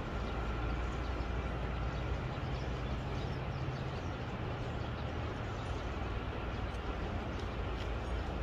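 Outdoor city ambience: a steady low rumble of distant traffic, with faint short bird chirps above it.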